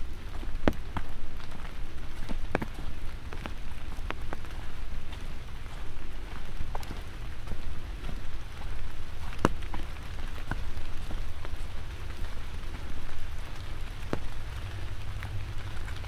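Light rain falling: a steady hiss with scattered single drops ticking sharply, over a steady low rumble.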